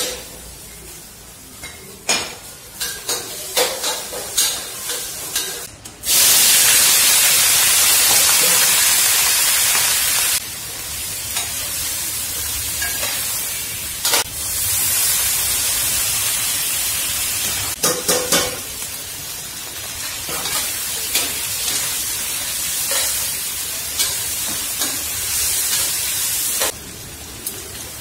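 Food frying in hot oil in a pan: a few clicks and knocks at first, then a loud sizzle starts suddenly about six seconds in, as food goes into the oil. It eases after about four seconds into steady frying with occasional sharp taps of a utensil on the pan, and drops quieter near the end.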